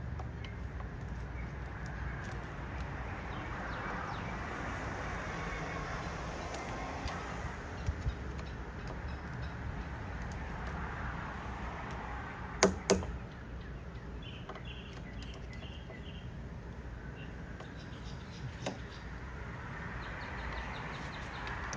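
Hands working a roof-rack foot and its tightening tool: a few light handling clicks, then two sharp plastic snaps close together about halfway through, over a steady outdoor background hum.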